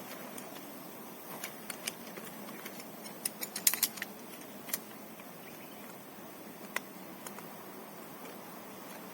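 Scattered light clicks and clinks of small hard objects being handled, with a quick run of them about three and a half seconds in, over a steady rushing background.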